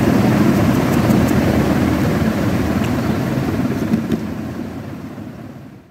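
Steady low rumbling background noise, with a few faint clicks, fading out to silence at the very end.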